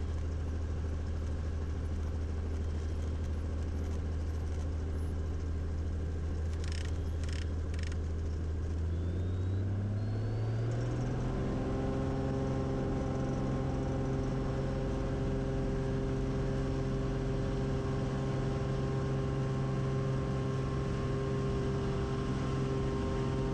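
Cessna 180's 520 engine and three-bladed propeller running at low power, then throttled up about ten seconds in, the pitch climbing over a couple of seconds to a steady full-power drone: takeoff power for the takeoff roll.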